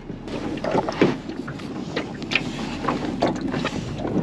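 Irregular knocks, clicks and rattles of gear and a landed fish against the hull of a small aluminum jon boat, over a steady wash of water and wind.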